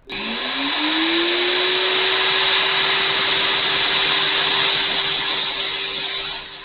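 Electric wood chipper shredder's 15-amp motor switching on and spinning up, its whine rising in pitch over about a second and a half, then running steadily at full speed. It turns quieter near the end.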